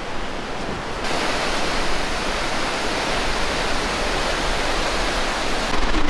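Rushing creek water: a steady, even hiss of flowing water that gets louder and brighter about a second in.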